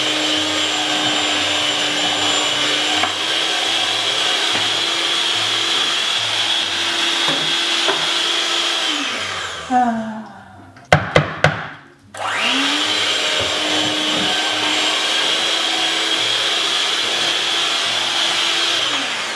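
Electric hand mixer running at a steady whine. About halfway through it is switched off and winds down, and a few clicks follow. It is then switched back on, spins up and runs again, winding down near the end.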